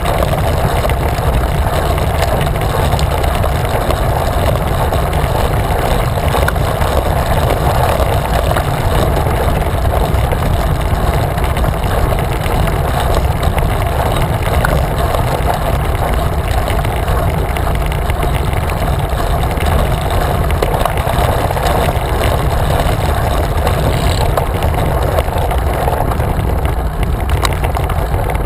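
Steady wind rush buffeting a handlebar-mounted camera's microphone, with tyre noise on asphalt, as a bicycle rolls along a road.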